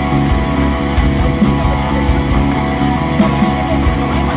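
Rock music with guitar and a steady beat, laid over the footage as a soundtrack.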